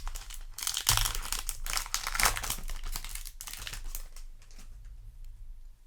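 A foil Yu-Gi-Oh! booster pack wrapper crinkling as it is torn open and handled, loudest in the first half. It fades to faint rustling and ticks after about four seconds.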